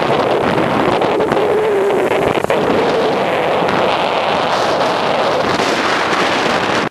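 Steady wind buffeting the microphone of a camera mounted on the handlebars of a moving bicycle, a loud, even rush that briefly drops about two and a half seconds in.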